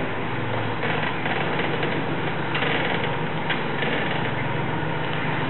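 The amphibious aluminium boat's engine running steadily with a low hum while it drives on its land wheels.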